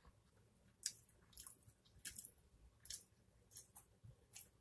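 A mouthful of pizza being chewed close to the microphone, with a series of short, wet mouth smacks and clicks about every half second, the loudest about a second in.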